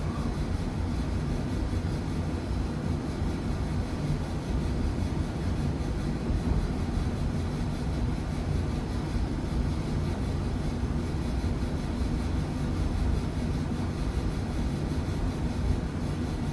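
Old Bryant gas furnace running with a steady low rumble, still going after being shut off as it winds down.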